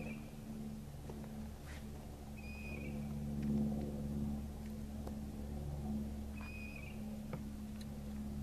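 A steady low hum made of several held pitches, with a short high chirp coming back about every three to four seconds and a few faint clicks.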